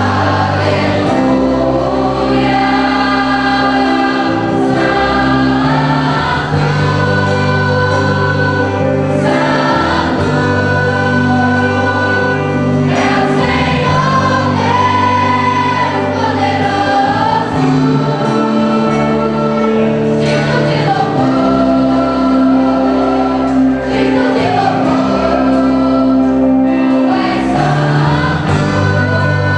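Choir singing gospel music, holding long chords over a bass line that moves every few seconds.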